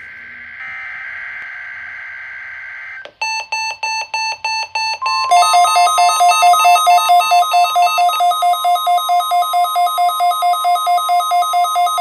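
NOAA weather radios (a Midland and a Reecom) alerting to a Required Weekly Test. First comes a buzzy burst of the broadcast's SAME data tones. About three seconds in, one radio's pulsed alarm starts beeping about three times a second. About five seconds in, the second radio's beeping joins, over the steady 1050 Hz NWS warning alarm tone.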